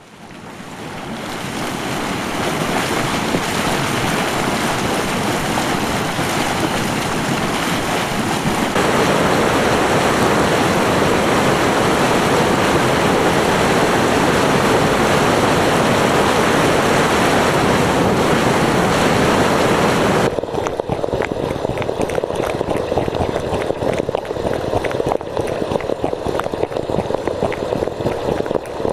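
Volcanic hot springs and steam vents: a steady rushing hiss of steam and boiling water that fades in at the start and changes abruptly about nine and twenty seconds in. After the second change it turns into a rougher, crackling bubbling.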